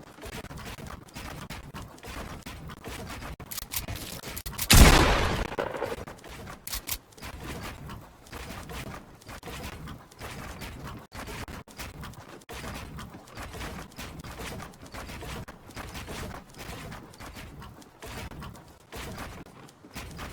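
Handling noises of computer parts during a PC build: a run of small clicks and taps, with one louder clatter about five seconds in.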